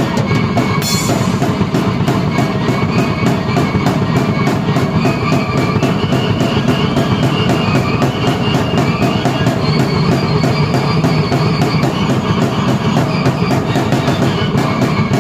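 Drum kit and keyboard played together: a steady, fast drum beat with a crash about a second in, under a keyboard melody.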